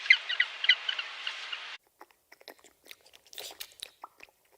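A run of short, high chirps over a hiss that cuts off abruptly about two seconds in, followed by an animal chewing with crisp, irregular crunching.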